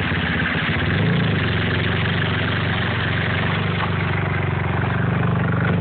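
Mercedes petrol engine idling steadily, heard straight from the open engine bay. The engine has overheated after hard driving and the coolant has boiled.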